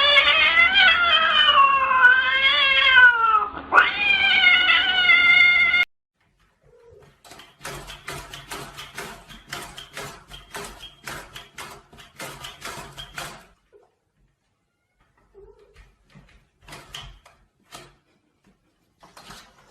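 Cat yowling, long drawn-out wavering howls that stop suddenly about six seconds in. Then a run of quieter rapid clicks or taps, and a few faint ones near the end.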